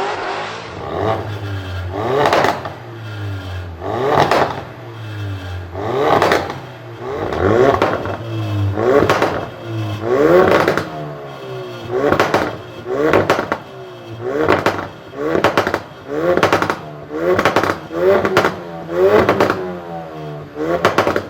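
Performance car engine revved in quick blips, one under every second, each rev rising in pitch and breaking into sharp exhaust pops and bangs.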